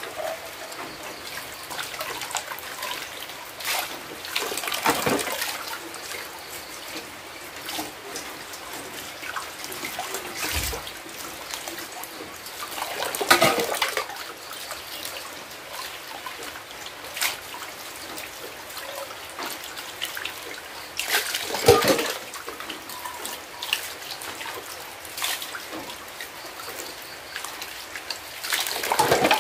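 Tap water pouring in a steady stream onto bowls as they are rinsed by hand. A few louder knocks come as dishes are handled, about four times.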